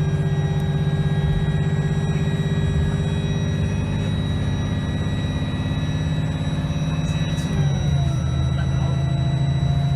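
Bus diesel engine running under way with a high, steady whine above the engine note; about seven and a half seconds in, the engine note drops sharply and then holds steady again.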